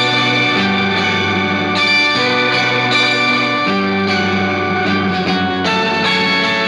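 Clean electric guitar played through two Digitech Whammy pitch-shifting pedals at once, a Whammy 4 set an octave up and a Whammy 5 set an octave down. Held chords change about every one and a half to two seconds.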